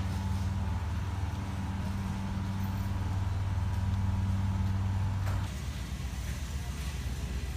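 Steady low hum of a supermarket freezer case's refrigeration machinery. It stops abruptly about five and a half seconds in, leaving a fainter steady background noise.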